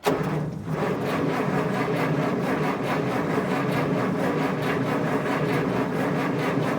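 Chrysler 318 V8 turned over by its starter motor, cranking steadily with an even rapid chug and not catching, then stopping near the end. The engine will not fire, which the owner suspects is the failure-prone Chrysler electronic ignition module.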